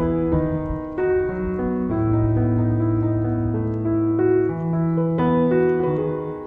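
Background piano music, with new notes struck about every second and held over one another.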